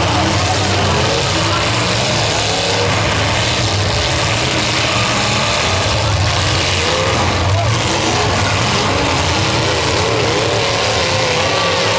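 Several demolition derby cars' engines running and revving together in a steady, loud din, with no single crash standing out.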